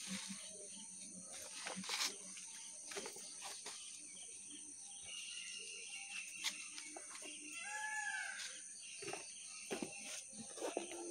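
Steady high-pitched chorus of insects outdoors, with scattered rustles and clicks from the backpack and its straps being handled. A short call rises and falls about eight seconds in.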